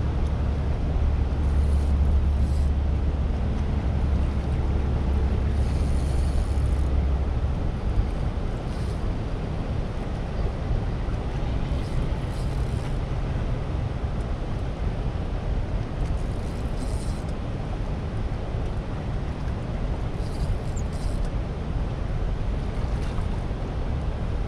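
Steady rush of water churning below the dam, with a deep low rumble that is strongest for the first seven or so seconds.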